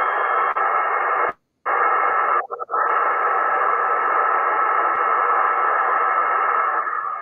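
Icom IC-707 shortwave transceiver receiving upper sideband on 14.100 MHz: steady, band-limited static hiss. The QRSS beacon's carrier is a faint steady tone barely audible in the noise. The sound drops out briefly twice in the first three seconds.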